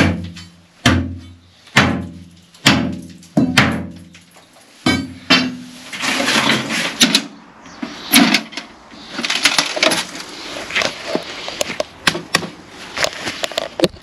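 A steel pry bar driven down repeatedly into a broken concrete floor slab to lever out the loose pieces, a sharp ringing blow about once a second for the first five seconds. After that, a run of metallic clicks and clatter as the latches and lid of a Bauker breaker's steel carry case are worked.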